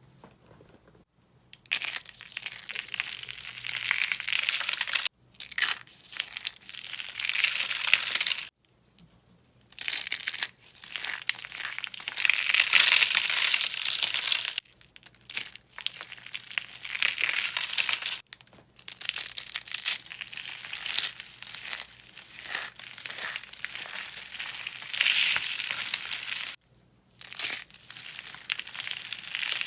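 Dry soap being crunched and crushed, a run of crisp crackling that starts about a second and a half in and goes on in long stretches with brief pauses.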